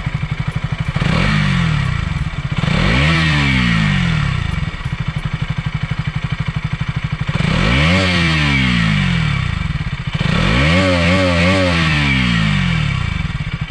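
KTM Duke 200 BS6's 199.5 cc liquid-cooled single-cylinder engine idling with a rapid, even beat through its underbelly exhaust. It is blipped four times, the revs rising and falling each time, the last rev the longest.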